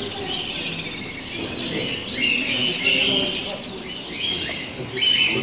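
Many caged canaries chirping and singing at once, short repeated high phrases overlapping, over a low murmur of people's voices.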